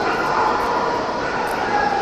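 Steady hubbub of a crowd in a large hall, with faint voices mixed in.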